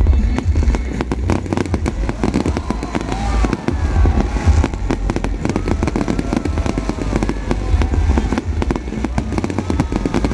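Fireworks display: a dense, continuous run of sharp bangs and crackles over a heavy low booming of bursting shells.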